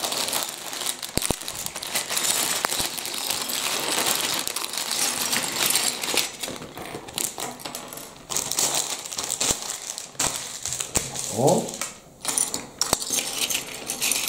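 Plastic Lego bricks pouring out of a bag and clattering onto a wooden tabletop in a dense rattle for the first several seconds, then scattered clicks as the pieces are spread out and picked through by hand.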